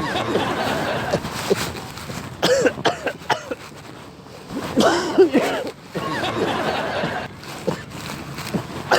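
A man coughing in put-on, hacking bouts as a prank, with several harsh coughs near the middle and the loudest bout about halfway through.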